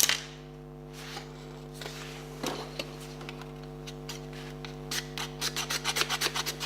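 Rasping scrape strokes on the hard plastic shell of a portable air compressor, a few at first and then quick and rhythmic, about four a second, from about five seconds in. The plastic is being worked to test what it is made of. A steady hum runs underneath.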